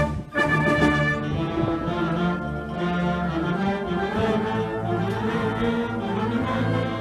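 A band with a heavy brass section playing a film-music medley: a short break just after the start, then full held chords with strong low brass underneath.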